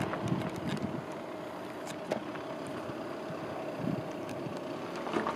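Steady outdoor background noise with a faint hum and a few scattered small clicks.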